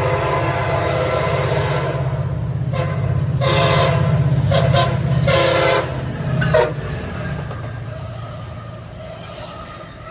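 Diesel locomotive horn sounding a long blast, then a run of shorter blasts over the low rumble of the engine as the train passes at speed. The horn's pitch drops on a last short blast about six and a half seconds in as it goes by, and the train's rumble then fades away.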